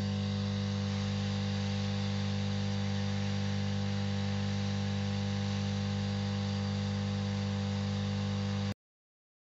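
Quick 861DW hot air rework station blowing hot air onto a surface-mount chip to melt its solder: a steady electric hum with a hiss of air. It stops abruptly near the end.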